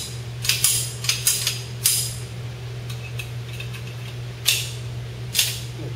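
A Norinco .45 Commander pistol fired in a quick string of about six sharp shots with a metallic ring over the first two seconds. Two more sharp cracks follow about a second apart near the end.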